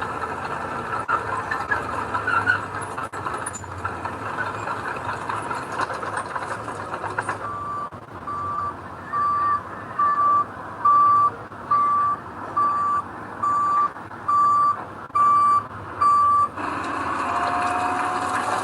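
Construction vehicle engine running, then its reversing alarm sounding: a steady series of about eleven single-pitch beeps, a little more than one a second. Near the end a louder rushing noise takes over.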